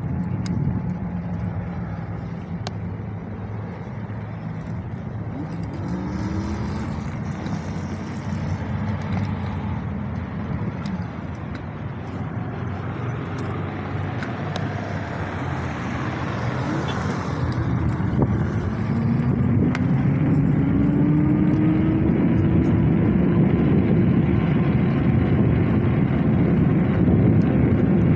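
Wind rushing over the microphone and tyres hissing on wet pavement while riding an Axiniu X2 dual-motor electric bike (96 V, two 750 W hub motors). The rush grows louder about two-thirds of the way through as the bike picks up speed, with a hum that rises in pitch.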